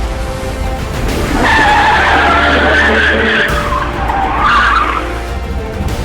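Car tyres screeching in a long skid: a loud, wavering high squeal that starts about a second and a half in and lasts about three and a half seconds, over background music.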